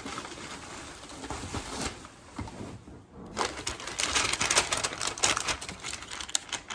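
Paper and packing material rustling and crinkling as it is handled and unwrapped, becoming louder and busier about three seconds in.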